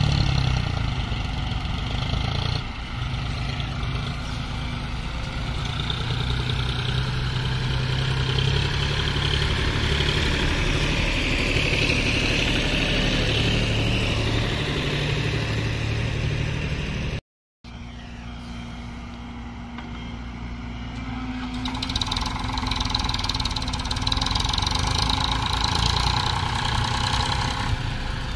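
Diesel tractor engines running under load as they pull trolleys heaped with soil. The sound cuts out for a moment partway through, then engine noise comes back quieter and builds up again.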